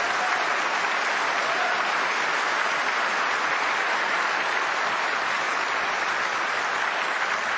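Large audience applauding: a steady, sustained round of clapping.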